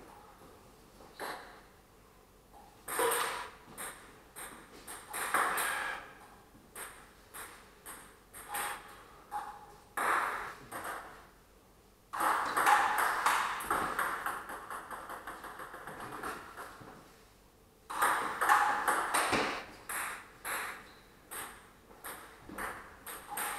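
Table tennis rallies: the ball clicking off the paddles and the table in quick back-and-forth hits, with short pauses between points. About halfway through, and again near three-quarters of the way, come longer, louder stretches of noise.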